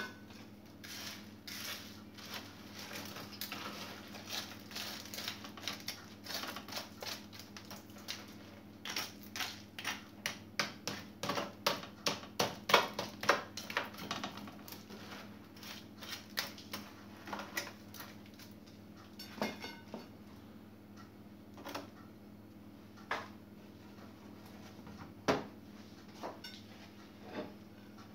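A fork scraping and tapping a coarse salt crust off baked whole fish in a metal oven tray: a run of quick clicks and scrapes, densest about halfway through and then sparser, over a faint steady hum.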